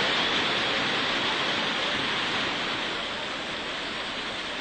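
Football stadium crowd noise: a steady roar from the stands that slowly eases off.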